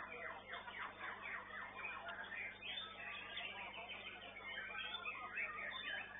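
White-rumped shamas (murai batu) singing: a rapid, unbroken run of varied chirps, whistles and trills, with several birds' songs overlapping.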